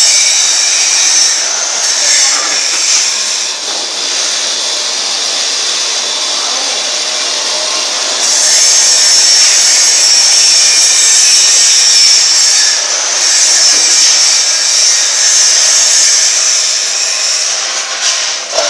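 Hydraulic power unit of a PET bottle baling press running: electric motor and pump giving a loud, steady hiss, which grows louder about eight seconds in.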